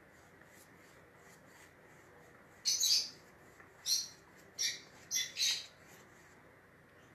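Pet finch chirping: a run of about five short, high chirps, starting a little under three seconds in.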